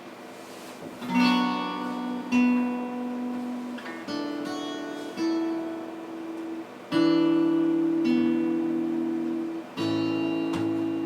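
Acoustic guitar playing a song intro: strummed chords struck every second or two, each left to ring, starting about a second in.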